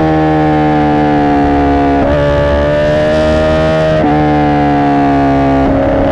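2017 Honda CBR1000RR Fireblade's inline-four engine through a Racefit aftermarket exhaust, running at high revs. The pitch sags slowly, then jumps up in three quick steps about two seconds apart, as it changes down through the gears.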